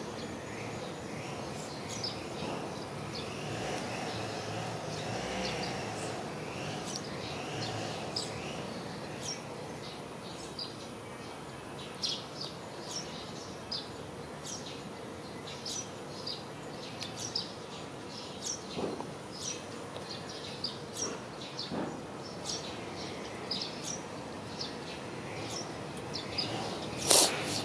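Cats crunching dry kibble: irregular short, sharp crunches over a steady background, with a faint high steady whine that stops about two-thirds of the way through. One louder crack near the end.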